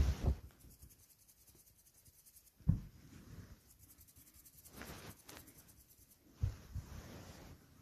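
Faint scratchy rustling with a few soft low thumps.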